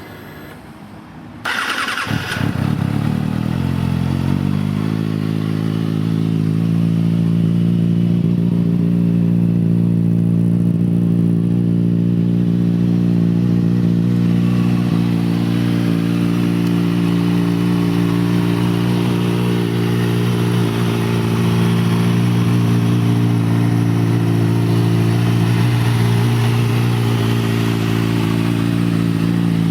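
A 2008 Kawasaki ZX-6R's inline-four engine fires up about a second and a half in. Its pitch shifts for a few seconds, then it settles into a steady idle for the rest of the time.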